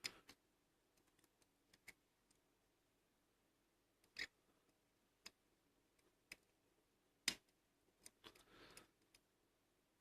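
Faint, scattered metallic clicks of a lock pick working the pins of a Bi-Lock rim cylinder, about eight in all, the sharpest about two-thirds through, followed by a brief light scrape.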